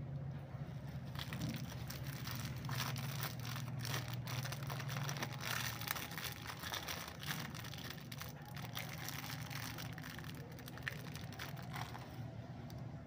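Thin clear plastic packaging bag crinkling and crackling as it is handled and opened, with a low steady hum underneath.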